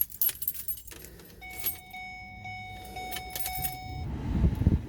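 Keys jangling and clicking in the ignition of a 2008 Ford Escape, then a steady electronic warning chime. About four seconds in the chime stops as the starter cranks and the engine catches, showing that the new ignition switch has cured the hard-start problem.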